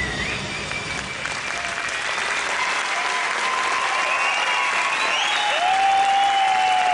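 Audience applauding after a dance performance, with long drawn-out cheering calls rising over the clapping, the loudest of them near the end.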